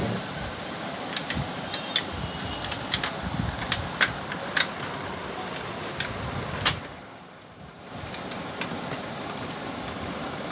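Scattered sharp clicks and knocks of the hard plastic parts of an opened Epson L130 printer's chassis being handled and pressed into place, with a louder knock about two thirds of the way in, over a steady background hiss.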